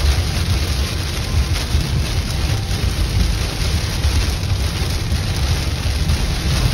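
Heavy rain hitting the car's windshield and roof, over a steady low rumble of tyres on the wet road, heard from inside the moving car.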